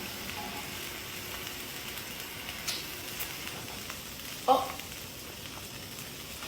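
Food sizzling as it fries in a pan, a steady crackling hiss with a few small ticks. One short, louder sound breaks in about four and a half seconds in.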